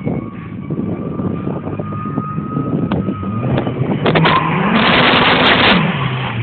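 Nissan 240SX engine with an exhaust leak running, with scattered ticks. About four seconds in it is revved up once and back down.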